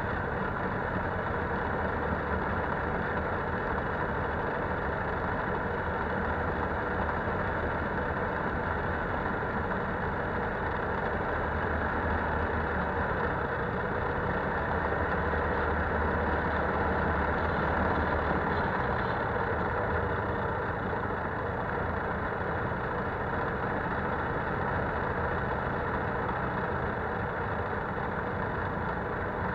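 Polaris Sportsman 570 ATV's single-cylinder engine running steadily while riding along a gravel road, with the rumble of tyres on the gravel mixed in.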